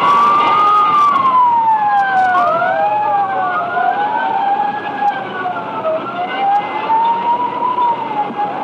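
Several fire engine sirens wailing together, their pitches rising and falling and crossing one another.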